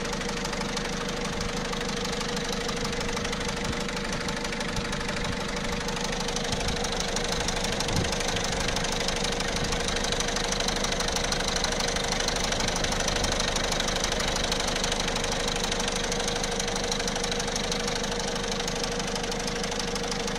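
1.6 HDi diesel engine, freshly rebuilt, running with a metallic noise from the timing-chain side, a little louder in the middle. The mechanic puts it down mainly to the slack, worn chain linking the two camshafts and its tensioners.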